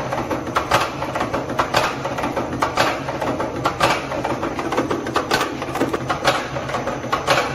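Hollow-bead making machine running: a steady motor hum under a regular mechanical clicking, one sharp click about every second with lighter ticks between, as its head forms beads along the metal tube.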